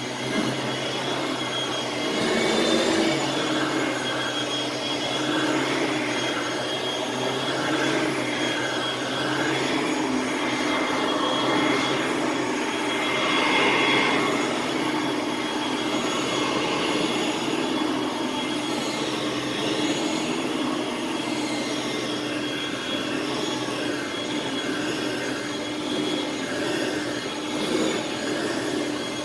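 Hoover Platinum Collection bagged upright vacuum cleaner running: a steady motor whine over a rush of air that rises and falls every few seconds.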